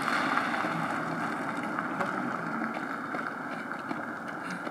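A car driving away on a paved road, its steady tyre and engine noise slowly fading.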